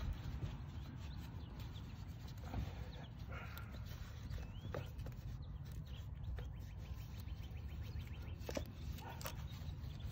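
Soft rubbing of a microfiber towel wiping a car's alloy wheel, with a couple of light knocks near the end, over a faint low outdoor rumble and a few bird chirps.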